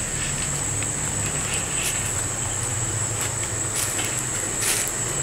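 Steady, high, unbroken trill of night insects such as crickets over a low steady rumble, with a few faint clicks.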